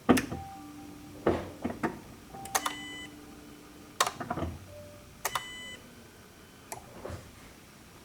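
Clicks from the ignition key being turned and two short electronic warning beeps from the car, with a faint low hum in between. No starter cranking is heard: the starter is dead even though it is getting its crank signal.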